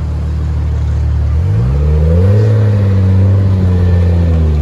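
Toyota Supra Mk4 (A80) straight-six engine accelerating as the car pulls away. The note climbs in pitch about a second and a half in, then holds steady at higher revs.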